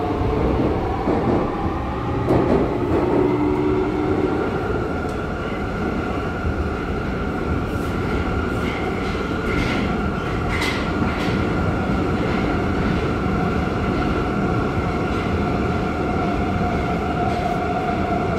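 Modernized Sofia metro train running between stations, heard from inside the car: a steady rumble from the wheels on the rails with a steady whine over it, and a few light clicks near the middle.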